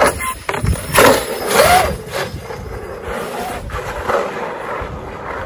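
Electric-converted Rovan RF5 RC rally car running on 8S power, driven hard on pavement: a motor whine rising and falling with the throttle over tyre rumble, with a couple of sharp knocks in the first second or so.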